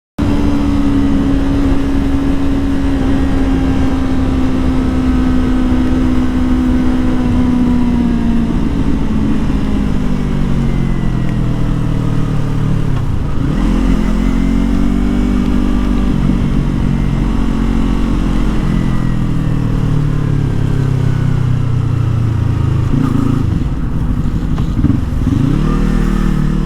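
Yamaha R25 motorcycle's parallel-twin engine running while riding. Its note holds steady, then eases off, drops low about 13 seconds in and climbs back up, and dips and rises again near the end.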